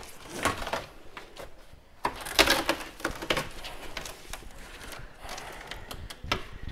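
Scattered knocks and clicks of objects being handled and set down, irregular and unevenly spaced, with a sharper knock about two and a half seconds in.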